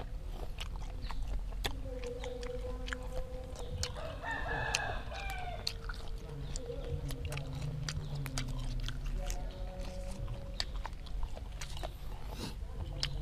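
Chewing grilled apple snail and fresh herb leaves close to the microphone, with many small wet clicks and crunches. A rooster crows in the background about four seconds in.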